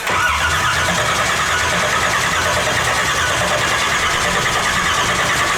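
Freshly rebuilt LS V8 running loud and steady on its first run after the rebuild.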